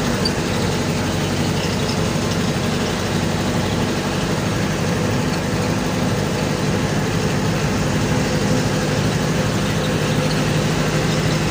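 Vehicle engine running steadily under way, heard from inside the cabin with road noise, a low even drone that grows slightly stronger near the end.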